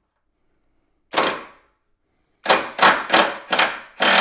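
3/8-inch cordless impact wrench hammering in short bursts as it breaks a bolt loose from 20 ft-lb of torque: one burst about a second in, then a quick run of about seven bursts, roughly three a second, from about halfway on.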